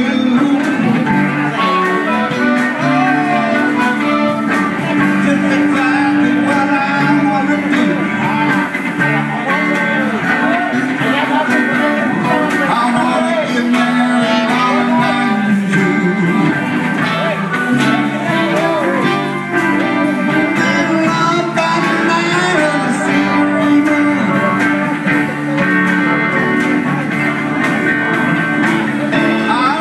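Live band playing at a steady level, with electric guitars and a keyboard, and sliding, bending notes in the lead line.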